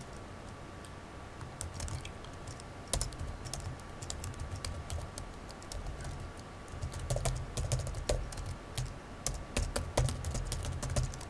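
Typing on a computer keyboard: a run of key clicks in uneven bursts, coming faster in the second half.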